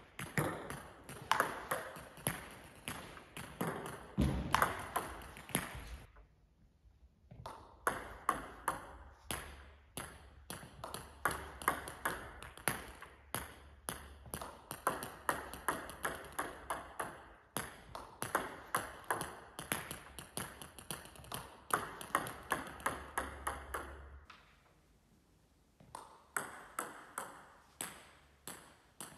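Table tennis balls clicking in quick succession: the bat striking the ball on sidespin serves and the ball bouncing on the table and the hall floor. The clicking pauses briefly twice.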